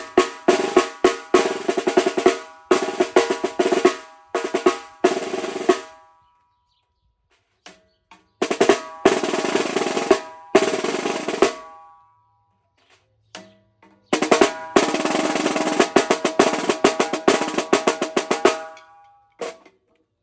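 DW Collector's Series snare drum played in three passages of rolls and accented strokes, separated by pauses of about two seconds, with the drum ringing at a steady pitch under the wires; a single last stroke comes near the end.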